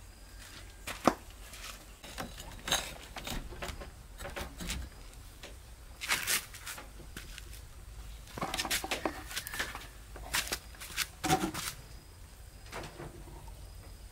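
Irregular knocks, clinks and scrapes of hand masonry work: bricks, tools and wet mortar being handled and set down, with a cluster of them about eight to nine and a half seconds in.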